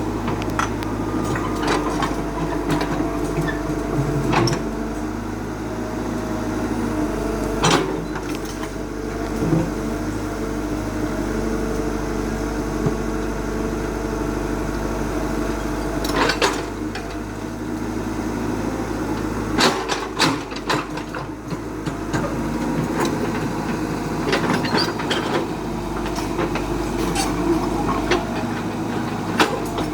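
Excavator diesel engine running steadily, with sharp metallic clanks and knocks at intervals, a handful over the stretch.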